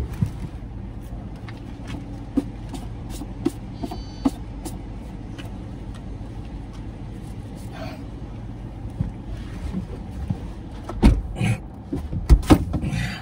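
Steady low hum inside a parked car's cabin, with scattered clicks and rustles of food packaging being handled. A few louder knocks and rustles near the end as a food tray is moved about.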